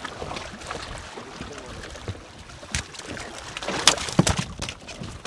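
Water splashing and slapping at a boat's stern as a hooked fish thrashes at the surface and is hauled out, with a few sharp knocks and splashes, loudest about four seconds in, over steady wind and sea noise.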